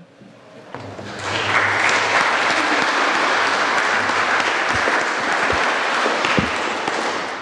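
Audience applauding, swelling about a second in, holding steady, then fading near the end.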